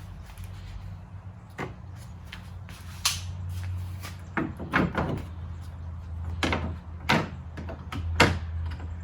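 A series of sharp knocks and thuds, about eight spread over several seconds, some in quick pairs, like doors or lids being shut and things being set down, over a steady low hum.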